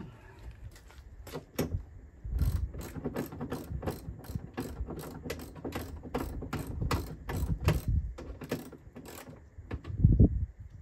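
Ratchet wrench clicking in runs as the window regulator's bolts are tightened into the door, about two to three clicks a second. A heavier thump near the end.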